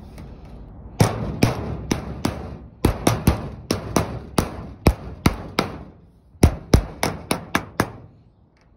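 Planishing hammer striking copper sheet laid over an oak form: a run of about nineteen sharp blows, two to three a second, with a short pause a little past the middle. The copper is being hammered to pound out creases in it.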